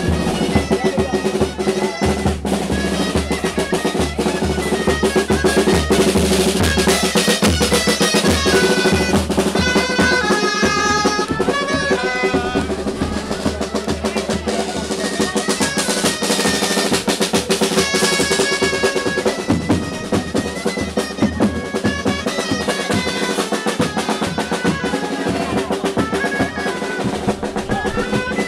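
Traditional pipe-and-drum band (gaiteros) playing a folk tune: a snare drum rolls and a bass drum beats under a reedy pipe melody over steady held tones.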